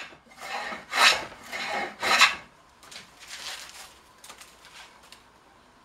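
Large hand jointer plane shaving the side edge of a wooden barrel stave: three long scraping strokes in the first two and a half seconds, then fainter, scattered scrapes.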